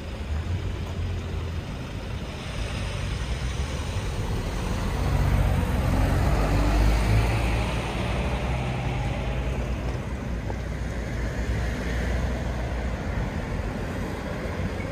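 Road traffic going by, a steady low rumble with one vehicle swelling louder through the middle and then fading away.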